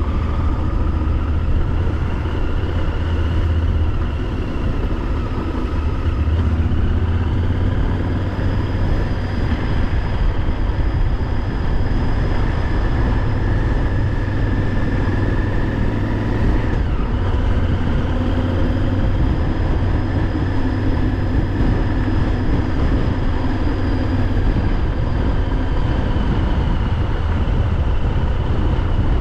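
Honda XL1000V Varadero's V-twin engine running steadily under way, with wind rush over the bike. The engine note rises and falls a few times as the road changes, with the clearest change a little past halfway.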